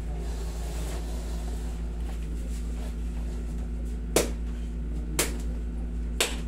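Three sharp clicks about a second apart, starting about four seconds in, as hands work a man's knee during a massage, over a steady low hum.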